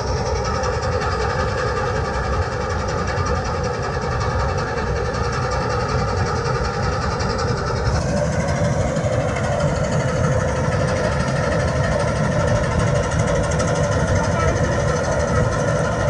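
Malkit self-propelled combine harvester running while it cuts wheat: a steady engine-and-machinery drone with several steady whining tones over a low rumble, slightly louder after about eight seconds.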